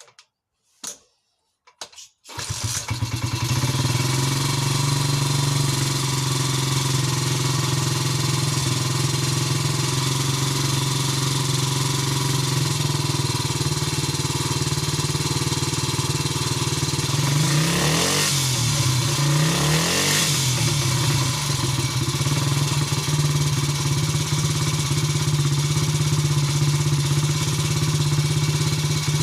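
Terrot 125 ETDS single-cylinder two-stroke motorcycle engine starting. A few clicks come first, then it catches about two seconds in and idles steadily. About two-thirds of the way through the revs rise and fall twice in quick throttle blips, then it settles back to idle.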